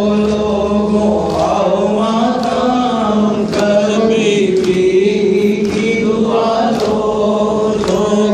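A noha, a Shia lament, chanted by a man into a microphone with other voices joining in. Under it run chest-beating (matam) thumps about once a second.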